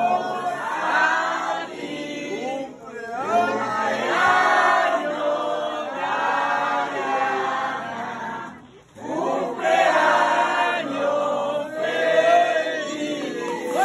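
A crowd of guests singing a birthday song together without accompaniment, breaking off briefly about three seconds in and again near nine seconds.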